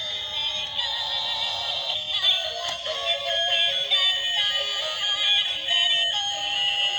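Electronic background music with a high, synthesized melody moving in stepped notes.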